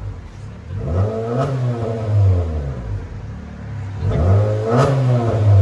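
2017 Honda Civic 2.0L four-cylinder revved twice through a straight-pipe exhaust with the middle resonator removed and a DTM dual-tip muffler. Each rev climbs in pitch and then drops back toward idle.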